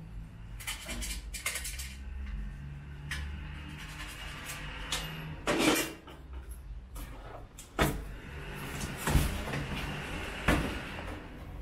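Scattered knocks and clicks of a split air-conditioner indoor unit being handled: its metal mounting plate lifted off and the plastic casing worked by hand, several sharp knocks at irregular intervals over a low steady hum.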